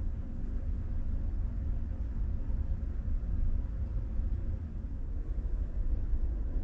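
Steady low rumble with a faint even hiss: the background hum of a room.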